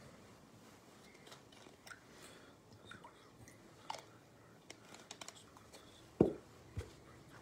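Faint crinkly rustles and scattered light clicks of hands handling a linen cloth and small altar vessels. About six seconds in come two dull knocks, the first the louder.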